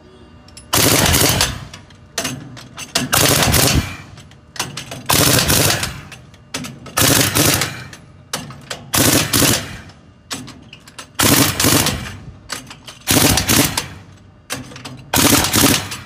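Pneumatic impact wrench on a support arm hammering the wheel nuts of a truck wheel. It runs in about eight rattling bursts of a second or so each, roughly every two seconds, one nut after another.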